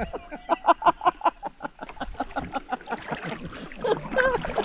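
A person laughing: a quick run of short laughs, about five a second, fading out, then a brief voice sound near the end.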